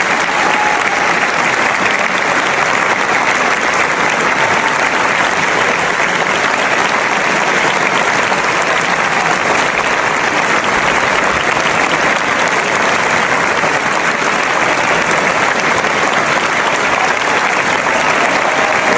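Large crowd clapping and cheering steadily, with dense applause and a few faint voices or whistles standing out near the start.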